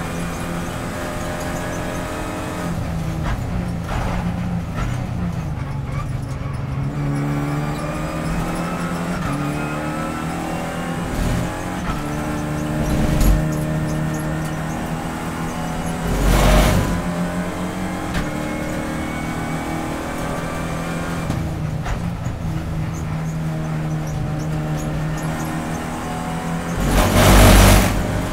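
Renault Clio Cup race car's engine running hard as heard inside the cockpit, its pitch falling and rising with braking, throttle and a shift from fifth to fourth gear. Two loud rumbles of about a second each break through, the louder one near the end.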